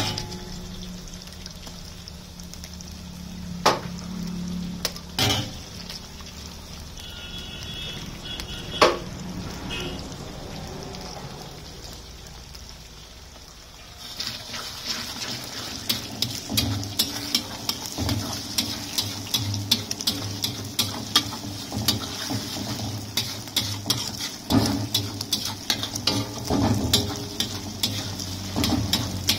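Eggs with chopped onion frying in a large iron wok. In the first half there are a few sharp taps as more eggs are cracked in. From about halfway a steel spatula scrapes and clatters rapidly against the wok as the eggs are scrambled, over a steady sizzle.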